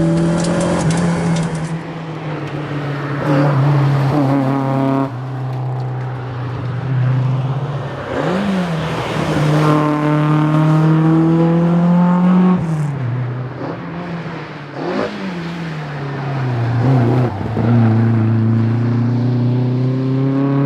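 Fiat 131 rally car's engine under hard acceleration, working up and down through the gears: the pitch climbs, then drops suddenly at each of several gear changes, with a few short rev spikes between them.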